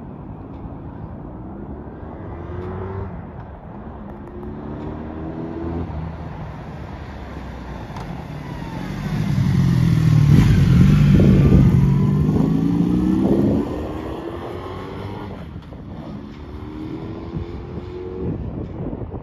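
1983 Honda Interceptor 750's V4 engine accelerating in several rising pulls as the motorcycle approaches. It passes loudly from about nine to thirteen seconds in, then fades as it pulls away with more rising pulls near the end.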